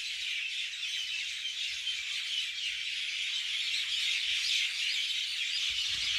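A dense chorus of many birds chirping at once, a steady high-pitched twittering.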